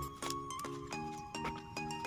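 Background music: a light melody of short, evenly spaced notes, about two or three a second.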